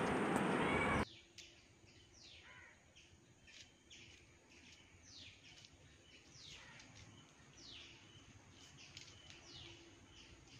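Faint birds chirping outdoors, many short falling chirps at irregular intervals. A louder sound fills the first second and cuts off abruptly.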